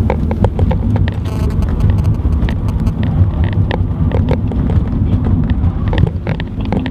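Cabin noise inside a BMW 118d four-cylinder turbodiesel hatchback driven hard through a corner: a steady low engine and road rumble with many short knocks and rattles.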